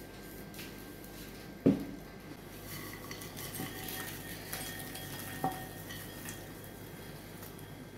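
Cookware clanking once, sharp and loud, then popped popcorn rustling as it tumbles from a pan into a stainless steel bowl, with a second, lighter metallic clink of pan against bowl that rings briefly.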